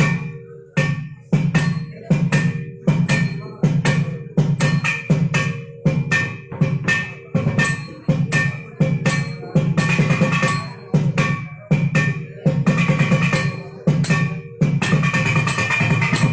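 Thavil, the South Indian barrel drum, played in sharp, loud strokes about two a second, each with a deep thud and a bright ring. A steady pitched tone joins in near the end.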